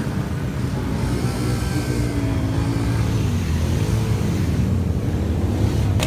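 An off-road ATV engine revving up and down several times over a steady low rumble.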